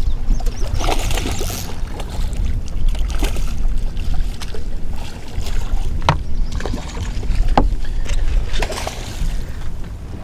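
Wind rumbling on the microphone and water sloshing beside the boat hull as a hooked smallmouth bass splashes at the surface. Two sharp knocks come about six seconds in and again a second and a half later.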